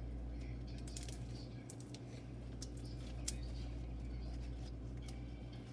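Hands squeezing and stretching soft slime, with scattered small clicks and pops, over a steady low hum.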